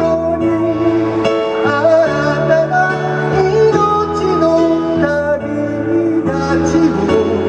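Song played on an electronic keyboard, held chords changing about once a second.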